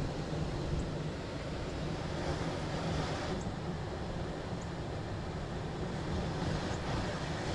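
Steady airy hum of a package heat pump's blower fan running.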